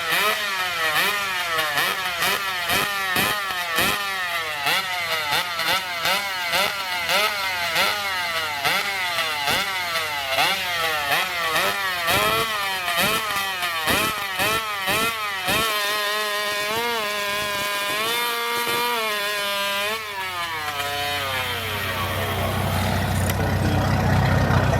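Two-stroke racing chainsaws being revved in quick repeated throttle blips, about two a second. About fifteen seconds in, one is held at high revs with small steps in pitch, then winds down; near the end a louder, rougher noise builds.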